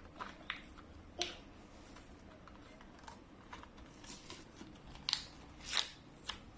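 Small plastic toys and their packaging handled by hand: scattered clicks and rustles, the loudest a little over a second in and twice near the end.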